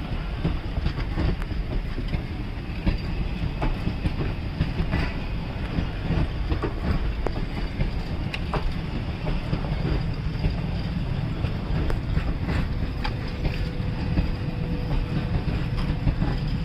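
ICF passenger coaches of an Indian Railways express rolling past close by: a steady low rumble of wheels on rail, broken by scattered clicks and knocks as the wheels cross the rail joints. A faint steady whine joins in near the end.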